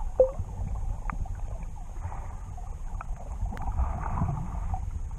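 Muffled underwater sound picked up by an action camera held below the surface: a steady low rumble of moving water with scattered clicks and crackles, the loudest a short sharp chirp just after the start.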